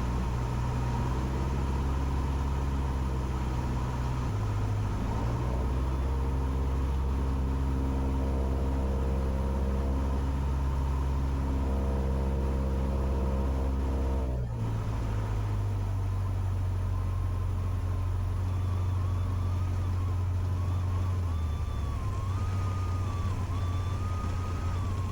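Cessna 150's four-cylinder engine and propeller droning steadily on final approach, heard from inside the cabin; the engine note shifts about fourteen seconds in.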